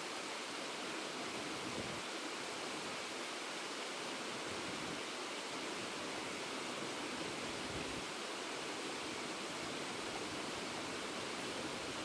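Small waterfall cascading over rocks: a steady rush of falling water, mostly hiss with little low rumble.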